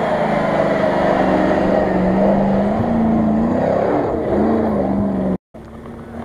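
Land Rover Discovery's engine revving under load as it climbs a steep dirt bank, its pitch rising and falling. Near the end the sound breaks off abruptly and a quieter, steadier engine follows.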